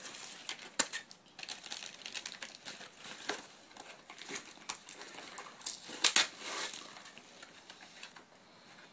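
A cardboard box being handled: irregular rustling and crinkling, with scattered sharp taps and clacks, the loudest a quick cluster about six seconds in.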